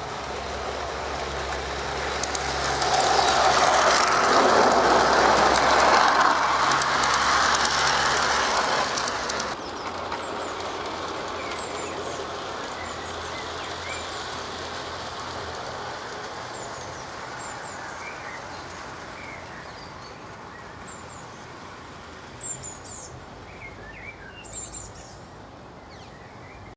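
Gauge 1 model locomotive and goods wagons running on garden track, the wheels rumbling along the rails, loudest about three to nine seconds in, then dropping suddenly and fading away as the train moves off. Birds chirp through the second half, with a few louder calls near the end.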